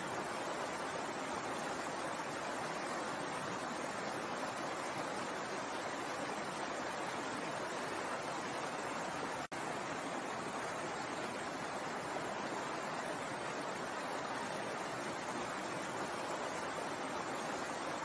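Stream water running over rocks, a steady rushing. It cuts out for an instant about halfway through.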